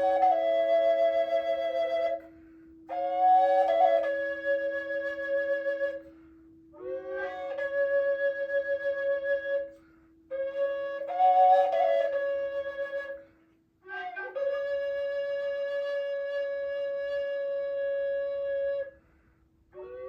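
Flute playing slow meditative music: long held notes with small ornaments at the start of phrases, in five phrases of a few seconds each with short breaths between them. A steady low drone tone sounds underneath and stops about two-thirds of the way through.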